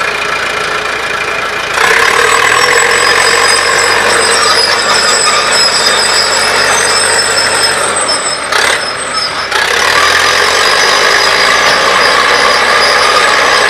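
Hanomag crawler loader driving and turning on its steel tracks: the engine runs steadily under a continuous high squeal from the track running gear. The sound dips briefly about nine seconds in, with a short sharp clank.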